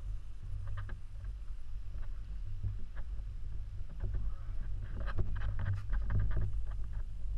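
Steady low rumble of wind and handling noise on a moving camera's microphone, with scattered taps and clicks from walking that grow busier in the second half as a front door is opened.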